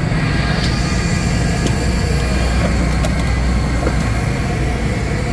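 A steady low mechanical rumble of a running machine, with a few light metallic clicks over it.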